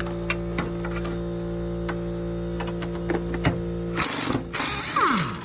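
A steady machine hum with scattered clicks, then about four seconds in a loud rushing burst from a power tool on the body-mount bolts, ending in a falling whine as the tool spins down.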